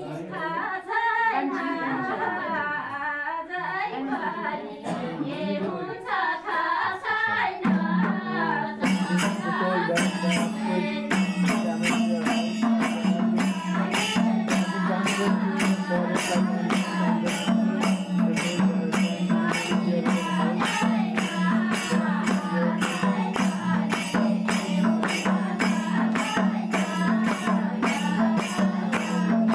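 Village women's group singing a folk song: voices alone at first, then from about eight seconds in joined by a steady, fast rhythmic percussion beat that runs on under the singing.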